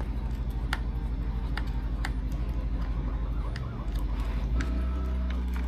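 Scattered small clicks and taps of tools and plastic parts as the center brace is worked loose from an RC truck chassis, over a steady low pulsing hum.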